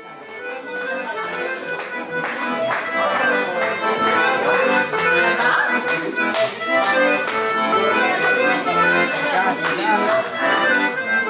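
Button accordion playing a tune with held chords, fading in over the first second or two.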